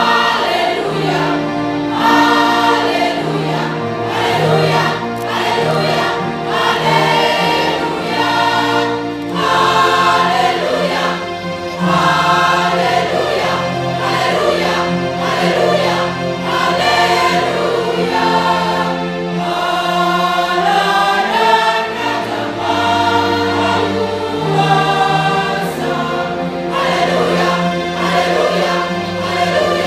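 Mixed choir of women's and men's voices singing a sacred piece in several parts, with notes held for a second or two.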